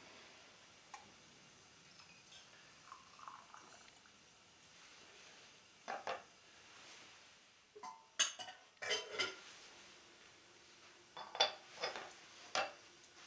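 Metal vessels clinking and knocking as a small iron sake pot and an aluminium sake-warming cup are handled and set down at a hearth. Two knocks about six seconds in, then clusters of clinks around eight to nine seconds and again around eleven to twelve seconds in.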